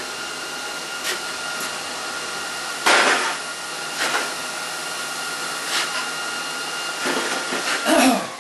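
Steady whirring hum of shop equipment, with several knocks and clanks as square steel tubing pieces are handled on a steel welding table. The loudest knocks come about three seconds in and just before the end.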